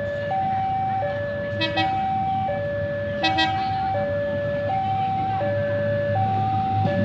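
Railway level-crossing warning alarm: an electronic two-tone signal alternating low and high, about three-quarters of a second per tone, the sign that a train is approaching. Two brief sharp sounds cut in at about one and a half and three seconds, and a low rumble swells near the end.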